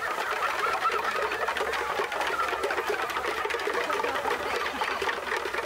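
Crowd of people talking and calling out at once, children's voices among them, over a fast, even clatter.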